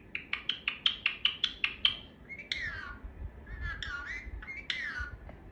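Pet parrot calling: a quick run of about a dozen short, sharp chirps, about six a second, over the first two seconds, then three separate falling whistled calls.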